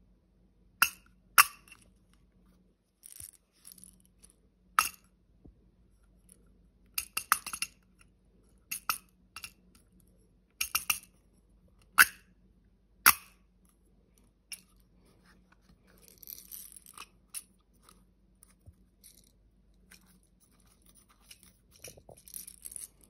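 Hard plastic clicks from a 360-degree rotary anti-splash faucet extender being twisted, flexed and stretched by hand: a dozen or so sharp clicks, some in quick clusters, then softer handling rustle near the end.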